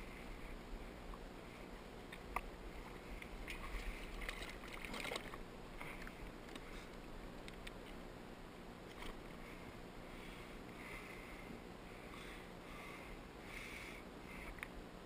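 Faint water lapping and sloshing against a small fishing boat's hull, with a few sharp clicks and knocks.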